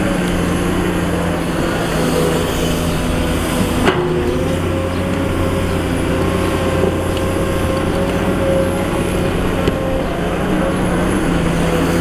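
Komatsu PC210 hydraulic excavator's diesel engine running steadily, with one sharp knock about four seconds in.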